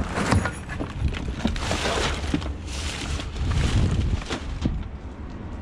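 Discarded junk being rummaged through by hand: irregular clattering, knocking and rustling of plastic and other items being moved, over a steady low rumble.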